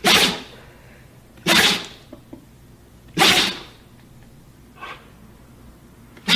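A dog sneezing over and over: short, sharp sneezes about every second and a half, with a fainter one between the third and fourth.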